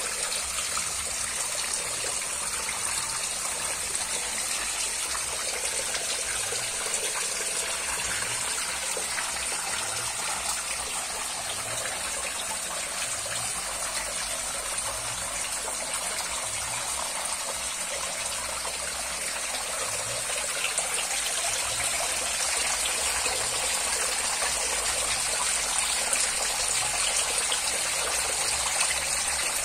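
Water splashing and trickling steadily in a small, densely stocked concrete catfish pond, its surface stirred by the crowded catfish. It grows a little louder in the last third.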